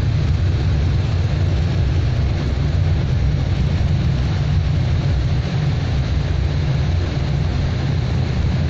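Steady low rumble and hiss of an airliner's engines and airflow heard from inside the cabin.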